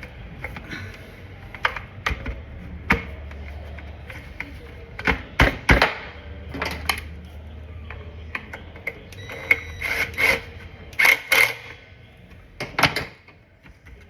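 Irregular clicks, taps and clatter of hand tools and small carburetor parts being handled, with louder knocks in clusters around the middle and near the end.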